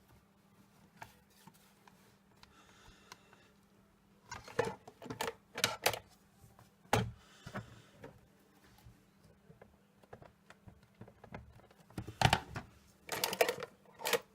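Paper and small craft tools being handled on a desk: scattered taps and clicks, in a cluster about four to six seconds in, a single knock around seven seconds, and another cluster near the end, over a faint steady hum.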